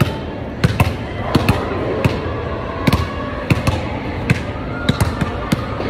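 Basketballs knocking against the backboards and rims of arcade basketball machines, sharp irregular thuds about two a second from two players shooting at once, over a steady background din.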